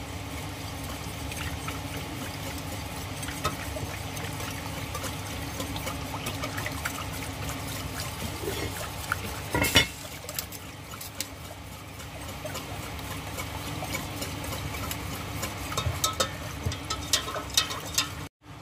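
Cream being stirred into a flour-and-margarine roux in a pot for a white sauce: a steady wet swishing, with a sharp knock of the utensil against the pan about ten seconds in and a run of light taps near the end.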